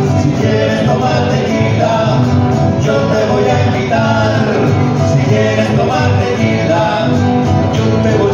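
Live mariachi band playing: strummed guitars with a voice singing in Spanish.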